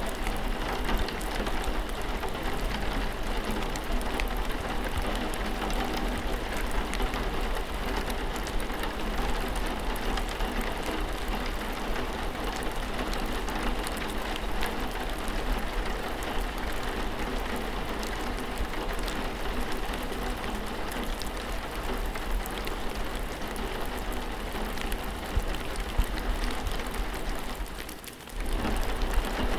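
Steady rainfall: a dense, even hiss of rain with individual drops ticking through it. It dips briefly quieter near the end.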